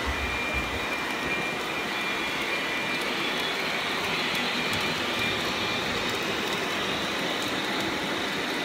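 Model freight train running steadily, its wheels rolling on the track and its motors running, heard close up from a car riding in the train: a steady rushing rumble with a faint high whine.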